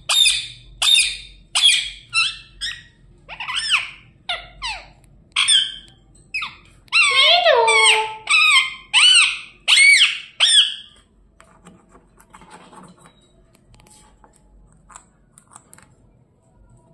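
Pet parrot calling loudly in a quick series of about fifteen short, shrill calls, each sliding up and down in pitch, which stop about eleven seconds in.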